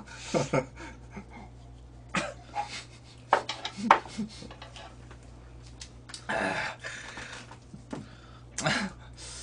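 Scattered short breathy vocal noises, coughs and breaths, during eating and drinking, with two sharp clicks of chopsticks against the grill a little over half a second apart midway through. A low steady hum runs underneath.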